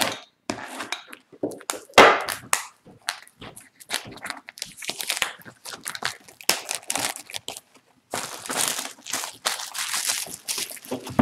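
Plastic shrink wrap being cut and peeled off a sealed cardboard box of trading cards: crinkling and crackling in quick irregular bursts, with the sharpest crackle about two seconds in.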